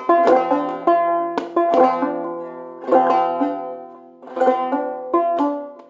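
Five-string banjo played clawhammer style, slowly: brushed strums and single plucked notes that ring on and die away between strokes, with a couple of longer held pauses.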